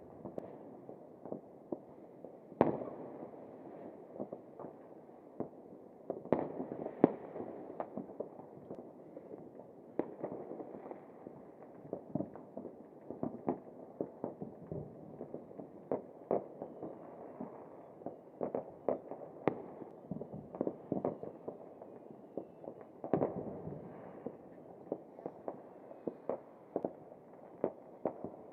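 Fireworks and firecrackers going off: a steady run of irregular sharp bangs and pops over a continuous background of distant crackling. The loudest bangs come about three seconds in, around seven seconds, and around twenty-three seconds.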